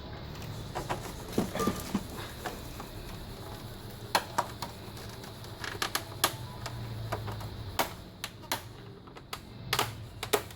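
Irregular plastic clicks and knocks as the plastic covers of an ASUS all-in-one PC are pried apart and handled, over a low steady hum.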